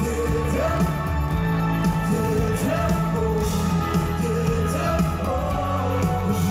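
Live pop-rock band playing through the PA, with electric guitars, bass, keyboard and drums under a male lead vocal, heard from within the audience.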